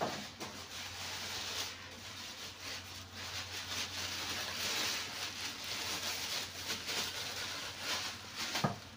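Butter sizzling as it melts in a hot stainless-steel pan: a steady crackling hiss.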